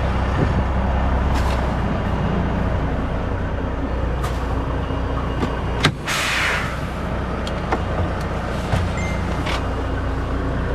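Semi truck's diesel engine idling steadily. About six seconds in, a sharp click is followed by a short hiss of air from the truck's air brakes.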